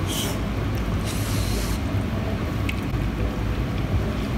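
Steady low mechanical hum, with two short breathy hisses near the start and about a second in, a person huffing air over a mouthful of food that is too hot.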